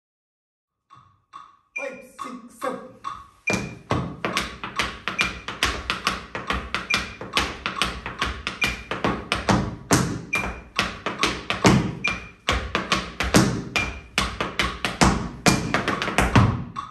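Tap shoes striking a wooden floor in a fast, rhythmic time step, over a metronome clicking at 140 beats a minute with an accented beep about every four beats. The tapping starts about a second in.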